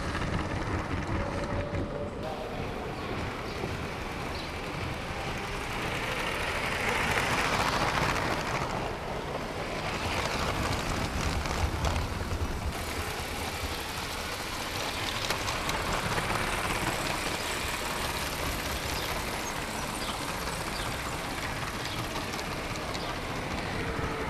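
LEGO 9V train, the Santa Fe Super Chief, running on its plastic track: a steady rattling rumble of the wheels and the 9V motor, heard close up from a camera riding with the train.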